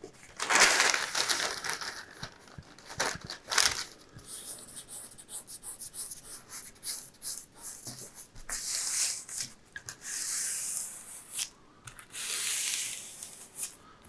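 Thin paper rustling and crinkling as hands rub and press it down over a canvas on a board, in irregular swishes, so the canvas beneath sticks to the PVA glue.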